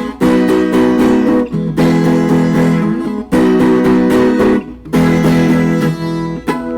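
Instrumental music: an acoustic guitar strumming chords in four short phrases with brief breaks between them, ending on a chord left to ring.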